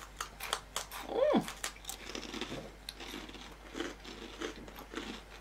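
Crunching and chewing of whole grain rye crispbread sandwiches with a creamy cheese-and-chive filling, a quick irregular run of sharp crunches. Very crunchy.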